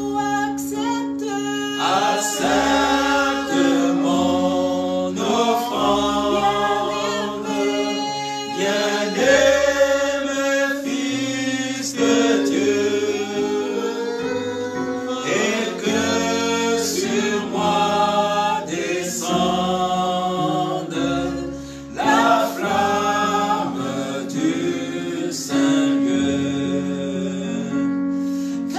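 Gospel worship song sung in French by a group of voices over held accompaniment chords, its low notes changing every few seconds.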